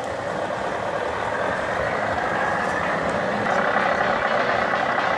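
Simulated diesel truck engine sound played by a radio-controlled Scania tow truck's sound module, running steadily and growing a little louder about three and a half seconds in.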